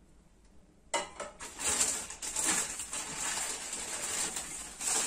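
A click about a second in as a small item is set down, then crinkly rustling of a plastic shopping bag being handled as wrapped plates are pulled out of it.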